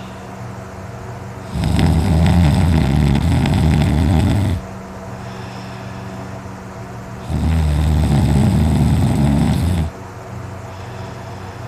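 A man snoring loudly in his sleep: two long snores, each about three seconds, about six seconds apart.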